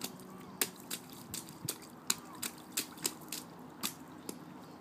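A toddler's rubber rain boots stamping in a shallow, nearly emptied puddle on wet asphalt: short sharp stomps and small splashes, about two or three a second.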